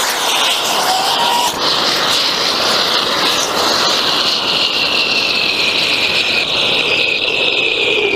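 Tribrid rocket motor on a static-fire test, nitrous oxide rushing through it with a loud hiss and a whistle that slowly falls in pitch, then cutting off suddenly at the very end. The motor is running as a weak hybrid with almost no chamber pressure: the alcohol injector never opened, so no fuel entered the chamber.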